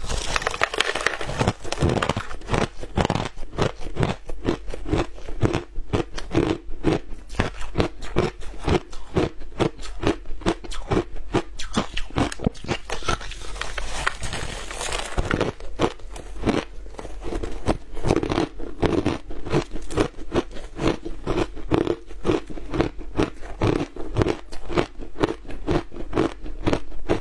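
Lumps of frozen shaved ice being bitten and chewed: a steady run of rapid, crisp crunches several a second, with heavier bites at the start and again about halfway through.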